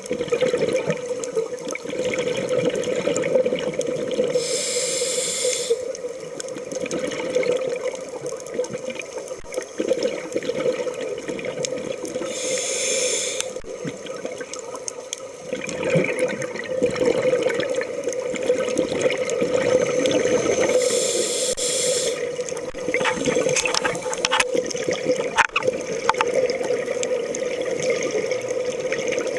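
Underwater sound of a scuba diver breathing through a regulator, with a hiss that comes three times, about every eight seconds, and bubbling water in between.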